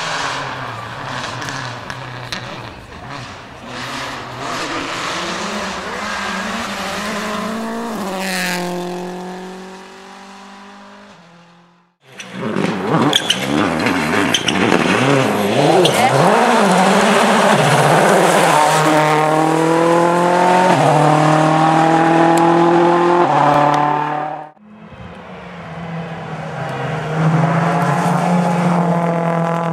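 World Rally Car engines pulling hard and rising in pitch through the gear changes, with tyre squeal, in separate passages that cut off abruptly twice.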